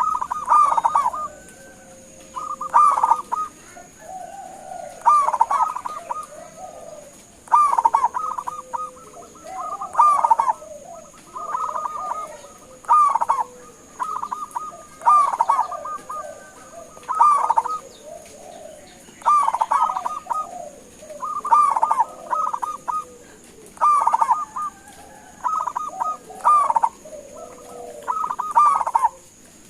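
Zebra dove (perkutut) singing its staccato cooing song: short phrases of rapid trilled coos, repeated about every two seconds.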